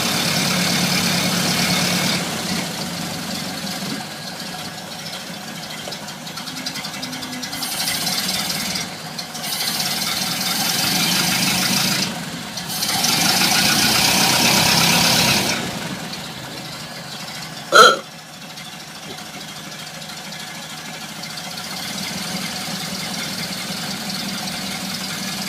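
An old car's engine running, with three louder, busier spells between about 8 and 15 seconds in before it settles back down. Near 18 seconds comes one very short, sharp pitched blip, the loudest moment.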